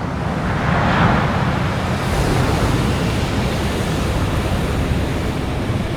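Ocean surf: a big wave breaking, its noise swelling about a second in, then a steady rush of white water.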